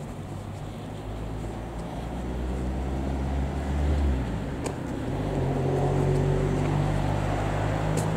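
Motor vehicle engines running: a deep engine hum swells louder over the first few seconds and drops away, then a higher engine hum carries on through the rest.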